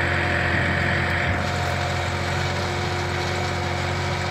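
Tractor engine running steadily under load while pulling a disc plough through dry soil.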